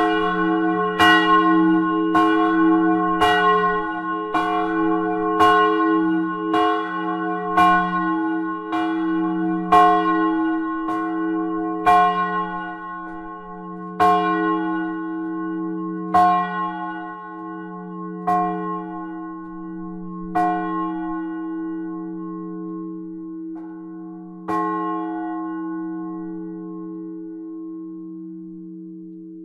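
Bronze church bells of St. Jakobus in Tiffen ringing, with a steady hum sustained beneath the clapper strikes. The strikes come about a second apart at first, thin to one every two seconds and fade: the peal dying away as the bells swing to rest.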